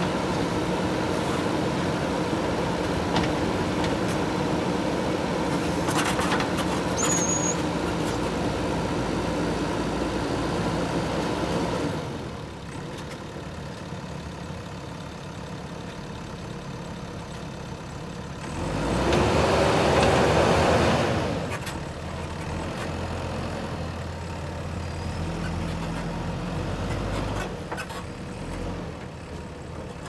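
JCB 3DX backhoe loader's diesel engine running steadily under working load, then dropping to a lower, quieter speed about twelve seconds in. Near two-thirds of the way through a louder rushing hiss lasts about three seconds, then the engine runs on at lower speed with its pitch shifting.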